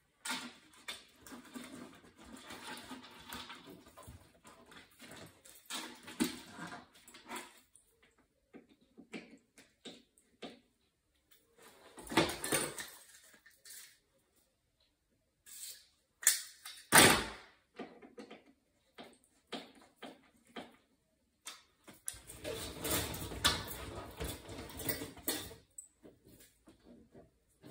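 Irregular clicks, knocks and rustling from hands and tools working on an oil boiler's burner and its flexible ribbed air hose, with two sharper knocks near the middle, the second the loudest. There is no steady running sound: the burner is not firing.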